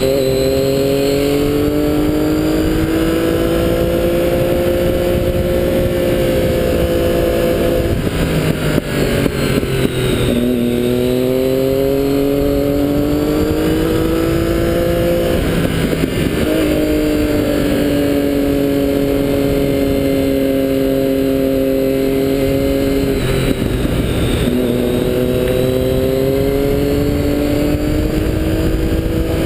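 Triumph Daytona 675's three-cylinder engine pulling up a winding mountain road, heard over a steady rush of wind. Its note climbs slowly in each gear, dropping at upshifts about eight, ten and twenty-four seconds in and jumping up at a downshift around sixteen seconds.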